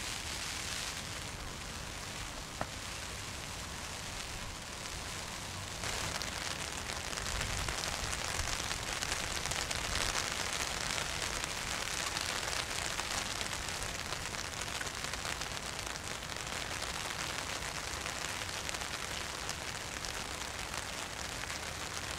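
Steady rain falling on standing water and a plastic pond liner, a constant hiss that gets heavier about six seconds in. One brief knock a couple of seconds in.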